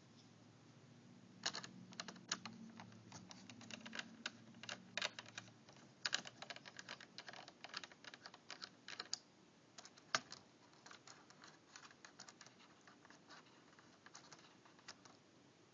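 Small Phillips screwdriver taking out the two top screws of a Dell Latitude D530 laptop's keyboard: a dense run of light, irregular clicks and taps that thins out after about ten seconds.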